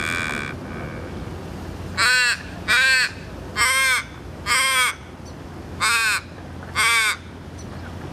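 Australian raven calling: a series of six harsh caws, each short and about a second apart, with a longer pause after the fourth.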